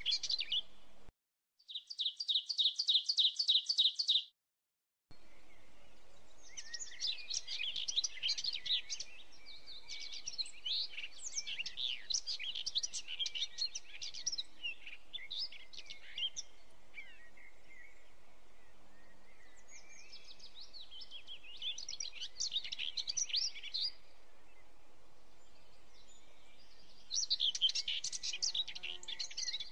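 Small birds chirping and twittering in quick clusters of high chirps, with a rapid, even run of chirps between two brief silent dropouts near the start.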